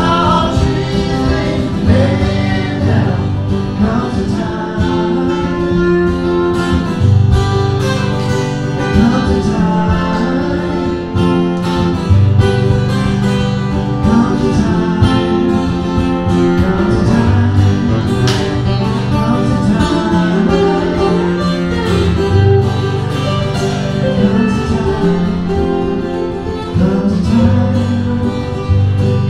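Live acoustic folk-country music: two acoustic guitars strumming, with harmonica and singing.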